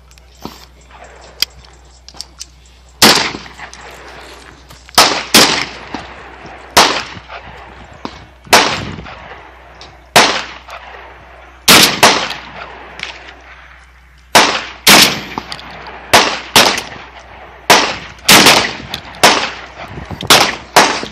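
Benelli M4 semi-automatic 12-gauge shotgun fired over and over, more than a dozen shots starting about three seconds in. Each shot is a sharp crack with a short echoing tail, spaced one to two seconds apart and sometimes in quick pairs.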